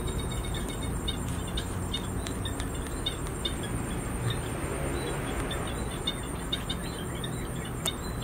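Outdoor ambience heard through the open fuselage: a steady high whine of insects and short repeated chirps, over a low steady rumble.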